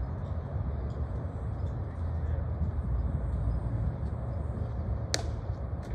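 Steady low outdoor rumble of field noise, with a single sharp crack of a baseball impact about five seconds in.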